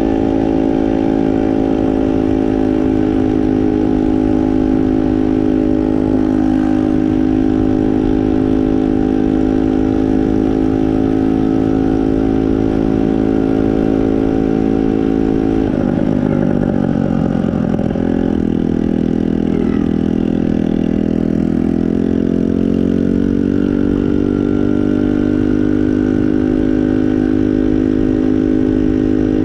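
Moped engine running at a steady speed, its note dipping and coming back briefly about 16 seconds in, then settling slightly lower from about 23 seconds on.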